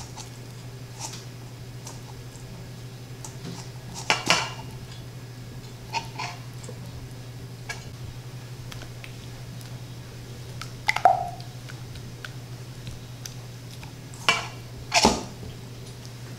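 Occasional knocks and scrapes of a hand and food against stainless steel mixing bowls while breading, one with a brief metallic ring about eleven seconds in, over a steady low hum.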